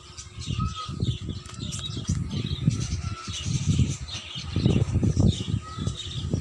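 Low, uneven rumble of a Suzuki Smash 115's single-cylinder four-stroke engine, growing stronger about four and a half seconds in, with birds chirping over it.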